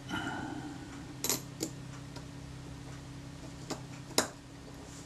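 Small metal camera shutter parts and tools handled at the bench: a short scrape, then four light metallic clicks and taps, the loudest near the end, over a steady low hum.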